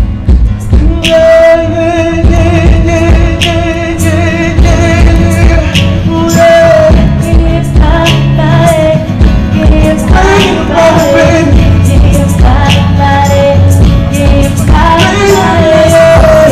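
Live R&B song: a male lead singer holding long, wavering notes over a band with acoustic guitar and drums, with a female backing singer.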